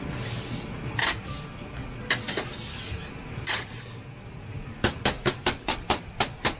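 A cleaver chopping a rolled rice noodle roll on a stainless steel steaming tray: a few scattered knocks and scrapes of the blade on the metal as the sheet is gathered up, then, a little before the end, a quick even run of chops, about five a second.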